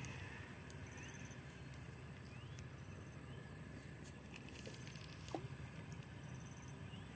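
Faint outdoor ambience beside a pond: a steady low background with faint high chirps repeating every couple of seconds, and a single soft click a little after five seconds in.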